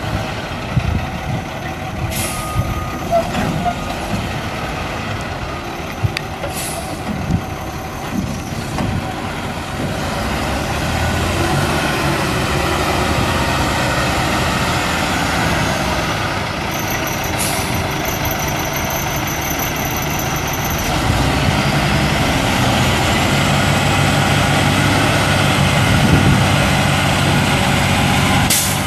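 A 2000 International F4900 dump truck's DT530 turbo diesel engine running as the truck drives, with a couple of sharp air releases from its air brakes in the first seconds. From about 21 seconds in, the engine runs louder and steadier while it powers the raising of the dump bed.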